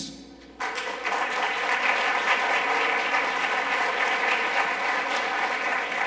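Audience applauding, starting about half a second in and going on steadily.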